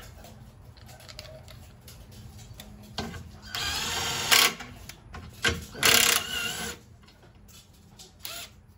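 Cordless power driver with a socket spinning a small nut onto a busbar terminal stud to secure a cable, in two short runs: one about three and a half seconds in, the second about six seconds in. Each run is a steady motor whine, with a few small clicks of handling around them.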